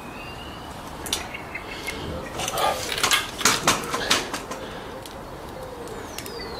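Scattered small clicks, taps and scrapes, busiest in the middle, from working a rubber tyre-repair plug strip into the eye of a metal plug-insertion tool.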